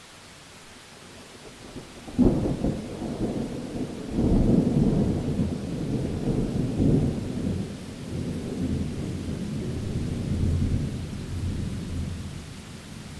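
Thunderclap: a sudden crack about two seconds in breaks into a long rolling rumble that swells again and slowly dies away, over a steady hiss of rain.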